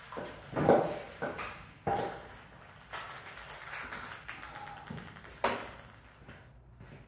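Table tennis ball knocking against paddles and the table, about six sharp, irregularly spaced taps with a short echo, the loudest about half a second in.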